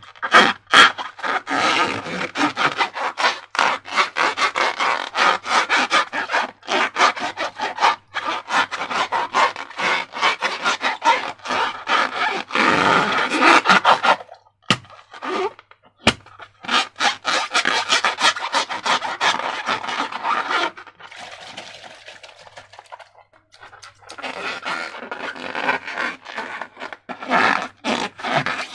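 Slime being squished, folded and stretched by hand, making a dense run of sticky crackles and small pops, with a short break about halfway through.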